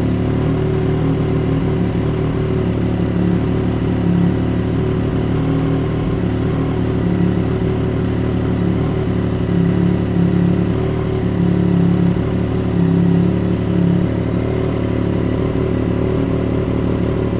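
2022 Triumph Street Triple RS's three-cylinder engine idling through an aftermarket steel cutback exhaust, mostly steady with a few slight swells. It is at a raised cold idle of about 1,500 rpm, freshly started after an ECU reflash and still settling into its new fuel map.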